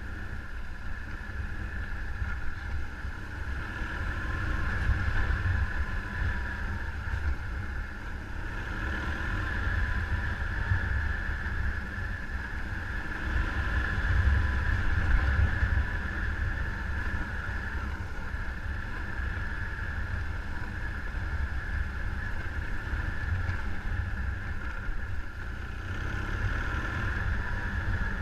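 Vehicle on the move: a steady engine note under heavy low wind rumble buffeting the microphone.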